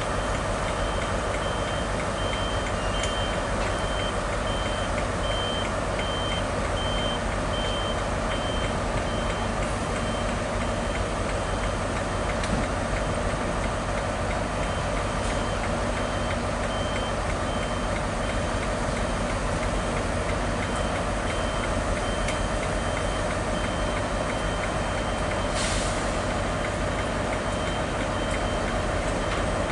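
Class 158 diesel multiple unit running slowly into the platform with a steady engine drone. A separate high repeated beep, like a vehicle's reversing alarm, sounds for the first several seconds and again midway, and there is a short hiss near the end.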